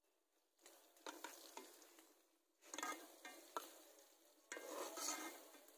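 Hot oil sizzling in a metal karahi around frying chira pitha, coming and going in bursts as the pieces are lifted out with a metal spatula, with a few sharp clicks of metal on the pan.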